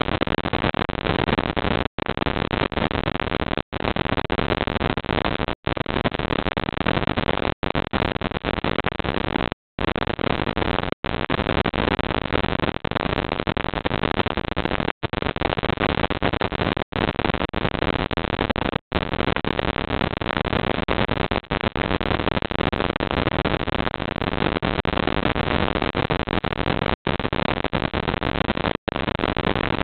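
Steady hiss from a security camera's audio feed, broken by brief silent dropouts about every two seconds.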